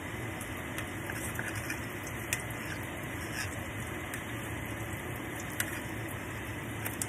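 Hushpuppies frying in hot oil in a cast-iron skillet: a steady sizzle with a few sharp pops scattered through it.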